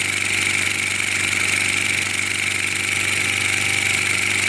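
3D-printed plastic steam engine running on compressed air at its top speed, about 1,460 rpm, with a steady, unchanging sound.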